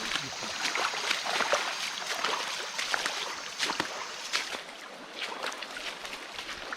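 Flowing stream water with scattered irregular clicks and knocks over it.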